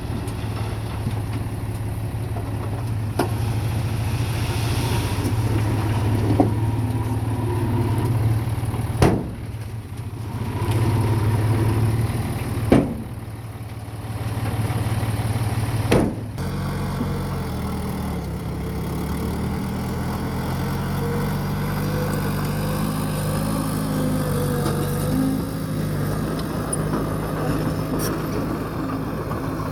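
Heavy earthmoving machine's engine running steadily, with three sharp knocks in the middle. About halfway through the engine note changes to a different, wavering pitch.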